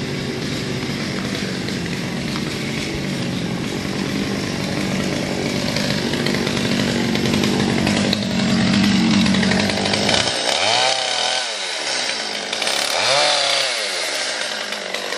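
Stihl MS 200 T top-handle chainsaw's two-stroke engine running steadily, then revved up and down twice in the last few seconds.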